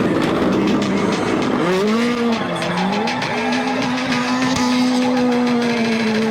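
Car engine revving: a noisy rush at first, then the pitch climbs, dips and climbs again and is held steady for about three seconds.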